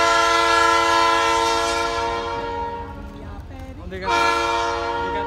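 Locomotive air horn sounding as the train approaches a road crossing: a long blast of several tones together that fades out about three seconds in, then a second blast starting about four seconds in.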